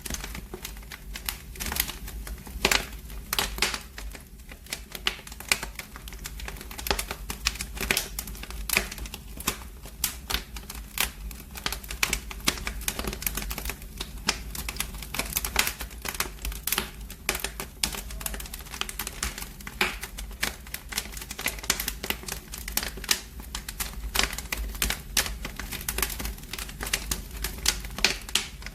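Wood fire in a fireplace crackling, with dense irregular pops and snaps over a low steady rumble.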